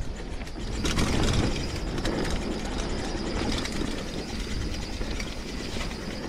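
Mountain bike coasting down a dirt singletrack: tyres running over loose dirt, the bike rattling over bumps and the rear hub's freewheel ratcheting, loudest about a second in.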